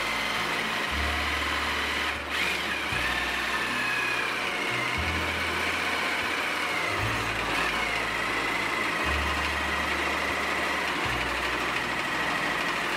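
Reciprocating saw cutting through the metal hub of a small windmill fan wheel: a steady rasp with a wavering high whine, easing off for a moment about two seconds in.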